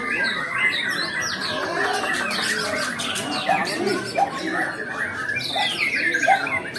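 White-rumped shama singing a busy, unbroken run of varied whistles and chirps, with other birds calling over it.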